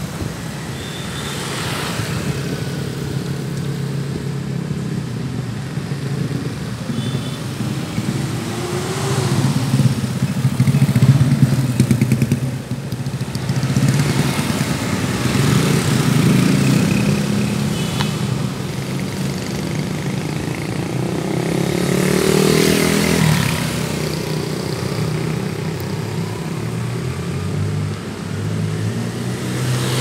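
Street traffic: motorcycle and car engines running and passing, with one engine revving up and down about eight seconds in. The loudest passes come around ten seconds in and again about twenty-two seconds in.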